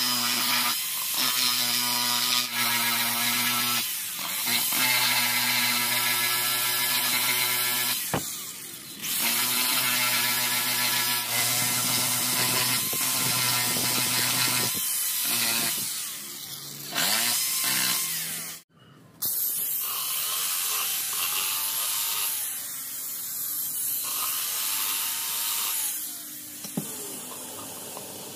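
Corded electric drill with a small rotary abrasive wheel running against a speaker cone, scuffing old residue off around the centre where the voice coil mounts. The drill runs with a steady hum in several stretches, stopping and restarting, and is quieter and wavering in pitch in the last part.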